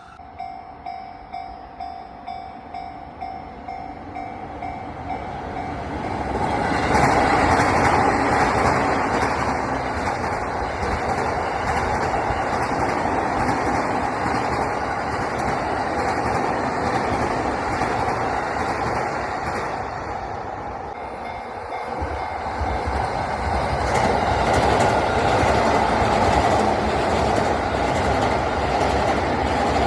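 A level crossing warning bell ringing in a steady rhythm of about two strokes a second, then an electric commuter train passing at speed, wheels clattering over the rail joints. It dips about 21 seconds in, and a second train passes right after.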